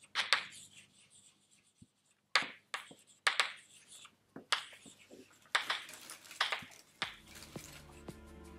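Scattered sharp clicks and taps of pens and small objects on school desks in a quiet classroom, irregularly spaced. Soft low music comes in about a second before the end.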